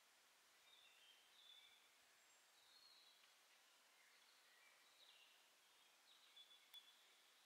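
Faint woodland birdsong: short high chirps and whistled notes recurring over a soft steady hiss, with one sharp click near the end.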